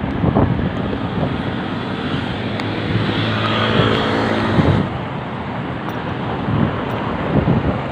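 Steady road and wind noise from a moving bicycle. A motor vehicle passes close by from about two and a half to five seconds in: its engine hum rises above the noise, then stops abruptly.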